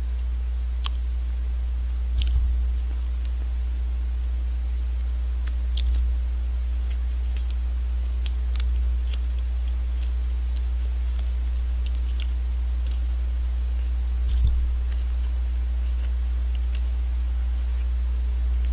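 Small scattered clicks and crinkles of a yanggaeng's wrapper being peeled open by hand, over a steady low hum.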